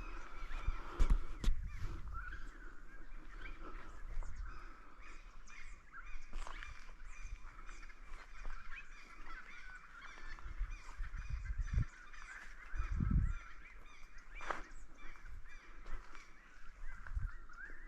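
A flock of birds calling continuously in a dense chatter of short honking calls. A few low thumps break in, the loudest about thirteen seconds in.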